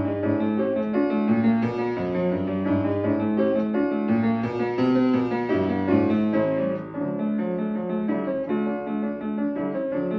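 Viennese fortepiano being played: a continuous run of notes over a low bass line. The bass drops out about seven seconds in, leaving the higher notes.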